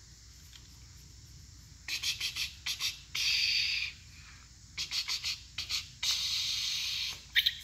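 Cat hissing twice, a short hiss about three seconds in and a longer one about six seconds in, between short scratchy clicks.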